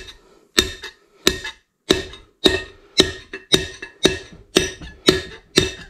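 Light, evenly spaced taps, about two a second, driving a wheel bearing race into a GMC Sierra 3500 dually rear hub, each with a short metallic ring. These are the final taps that seat the race fully in the hub.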